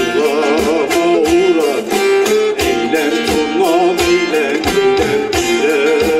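Amplified bağlama (Turkish long-necked saz) playing a folk melody over electronic keyboard accompaniment with a steady beat, an instrumental passage without singing.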